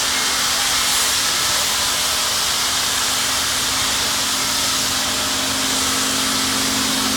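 Union Pacific Big Boy 4014, a 4-8-8-4 articulated steam locomotive, venting steam in a loud, steady hiss, with a faint steady hum underneath.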